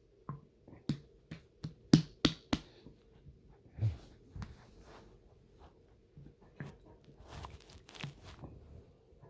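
Water sloshing in a person's stomach, heard as a string of short wet clicks and pops: a quick cluster in the first few seconds, a low gurgle near the middle, then scattered pops.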